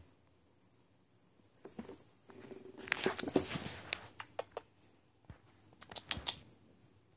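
A kitten at play on carpet: scattered light taps and clicks, with a louder scuffling clatter about three seconds in.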